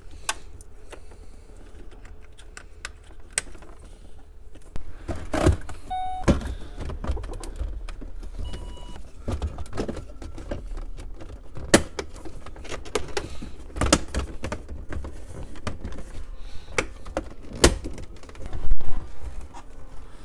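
Plastic dash trim panels of a Mercury Mountaineer being pressed and snapped back onto their clips: a long run of irregular clicks, snaps and knocks with handling rustle, the loudest knocks in the second half.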